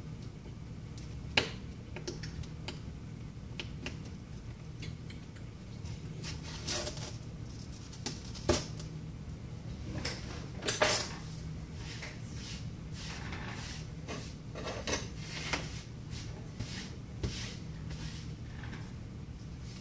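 Small hand tools handled during an iPad glass replacement: scattered light clicks, taps and scrapes of metal on a hard surface, over a steady low hum.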